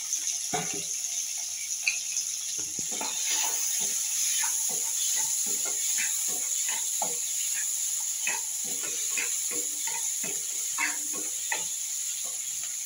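Chopped onions and tomatoes sizzling steadily in hot oil in a non-stick kadai while a wooden spatula stirs them, with many short irregular scrapes and taps of the spatula against the pan.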